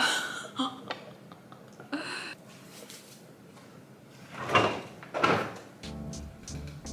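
Kitchen refrigerator door being opened: two clunks a little under a second apart, about four and a half seconds in. Background music with a steady low note begins near the end.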